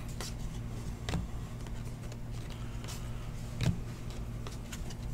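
Trading cards being handled and flipped through by hand, with a few soft clicks of card stock, the loudest a little before the four-second mark, over a steady low hum.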